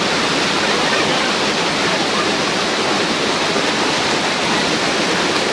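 Waterfall crashing heavily into its pool, a loud steady rush of water with no break.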